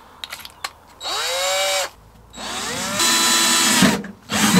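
Cordless drill running in three short bursts, each rising in pitch as the motor spins up, drilling through pre-stamped holes in a Land Rover Series 3's rear body for the tailgate chain anchor bracket. A couple of short clicks come before the first burst.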